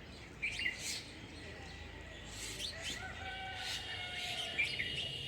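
Backyard birds chirping in short, quick calls, with a longer held note coming in about three seconds in.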